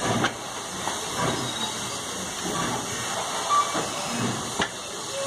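Steam hissing from Canadian Pacific 2-8-0 steam locomotive 3716 while it stands with its train, with a couple of sharp knocks, one just after the start and one near the end.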